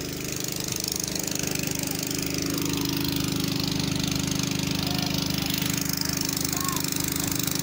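Diesel engine of an ACE F15 pick-and-carry crane running steadily at working revs, getting a little louder about two seconds in.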